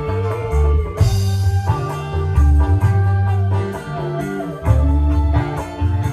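Live band playing instrumental dangdut music: electric guitar over heavy bass notes, drum kit and hand drums.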